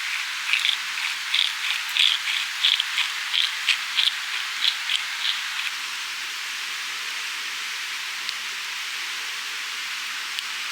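Yakitori skewers of chicken sizzling on a grill: a steady hiss with a run of sharp pops over the first five seconds or so, then only the hiss.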